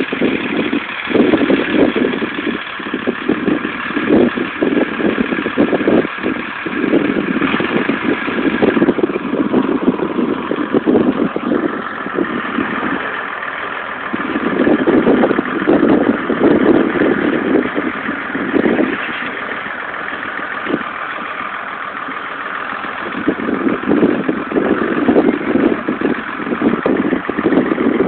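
Tractor engine running steadily, its sound swelling and easing several times.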